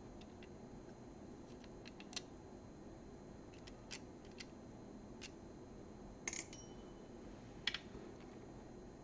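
Scattered light clicks and taps of small parts and tools being handled, about six over several seconds, over a steady low hum.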